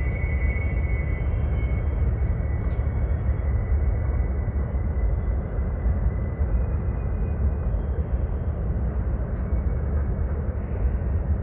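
Outdoor ambience over a large freight rail yard: a steady, deep rumble with a few faint clicks.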